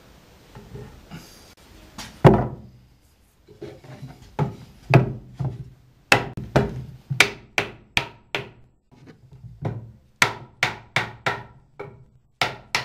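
Hammer striking the end of a glued wooden board to drive it into a tight groove joint: a run of sharp wooden knocks, about two a second, starting about two seconds in with one loud blow and pausing briefly near the middle.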